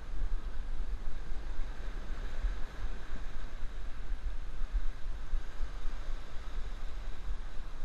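Wind buffeting the microphone in uneven gusts, over a steady hiss of waves washing against the jetty.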